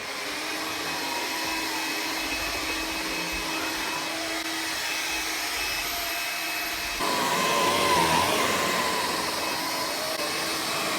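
Hoover Air Cordless 3.0 battery-powered upright vacuum cleaner running steadily after spinning up. About seven seconds in it gets louder and its whine wavers.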